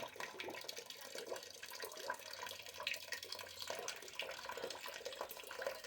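Water trickling from the boiler's sight-glass fitting, with scattered light clicks of metal fittings being handled as the parts go back together.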